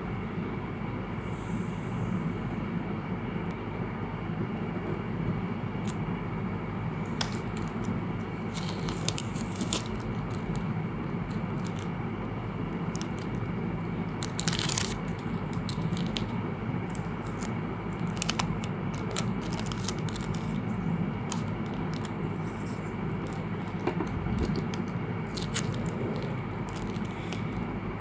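Thin clear plastic bag crinkling in irregular short bursts as a paper cutout is handled inside it, over a steady low background rumble.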